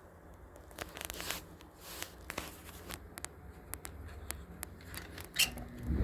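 Handling noises: scattered light clicks and crinkling, with a sharper click a little before the end.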